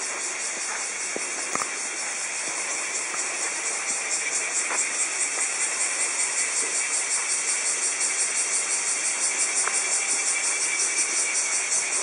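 A chorus of cicadas: a steady high buzz pulsing several times a second, swelling slightly about four seconds in.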